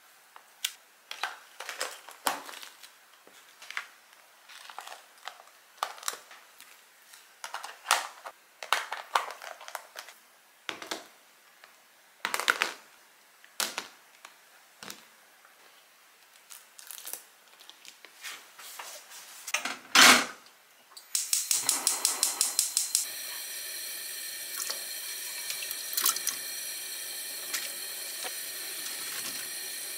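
Clear plastic food containers and their contents handled on a table: irregular light clicks and taps, with one louder knock about two-thirds of the way through. Then a gas stove's igniter ticks rapidly for about two seconds, and the burner runs with a steady hiss under a pot of water.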